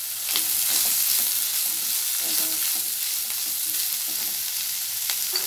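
Chopped cabbage, carrot, beans and chicken sizzling in a non-stick kadai on high flame while a wooden spatula stirs them, with a steady hiss and a few light knocks of the spatula against the pan.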